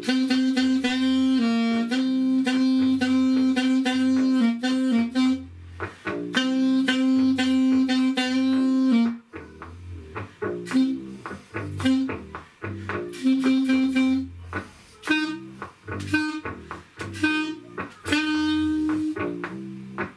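A Saxmonica, a small saxophone-like wind instrument, playing a slow blues melody over a backing track with guitar and bass. It plays long held notes for the first half, then shorter phrases with gaps where the backing track comes through, and one more long note near the end.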